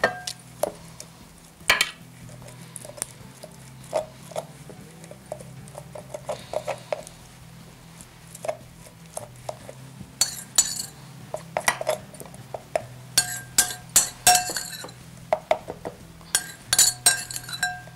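Kitchen utensils clinking and tapping against glass bowls and a glass baking dish while marinade is worked over a fish. The clinks come in scattered clusters, busier in the second half, some ringing briefly. A faint steady hum sits under them.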